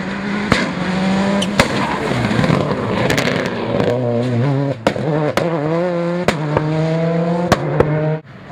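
Škoda Octavia WRC rally car's turbocharged four-cylinder engine at full throttle, its pitch climbing through each gear with sharp cracks at the shifts as the car drives past. The sound cuts off suddenly near the end.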